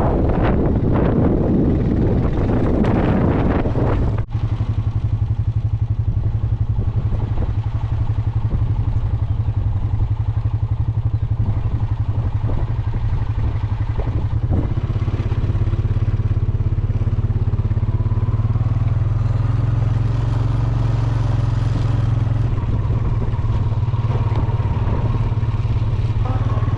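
Vehicle engine running steadily while driving, a low even drone with a fast regular pulse.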